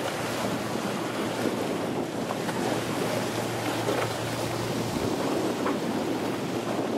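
Wind buffeting the microphone over choppy open sea, with waves washing around the boat: a steady rushing noise.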